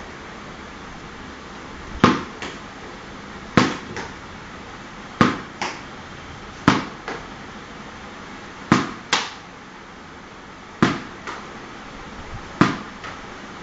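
A series of sharp knocks or slaps, coming in pairs (a louder hit followed by a softer one) about every one and a half to two seconds, over a steady background hum.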